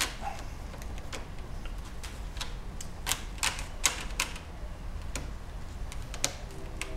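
Irregular light clicks and taps of hands handling parts on the terminals of a 2005 Toyota Prius high-voltage battery pack, over a low steady hum.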